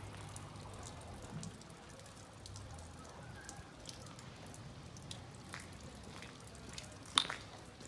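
Light rain and dripping water after a storm, faint scattered drops ticking over a low steady background hum, with one sharper click about seven seconds in.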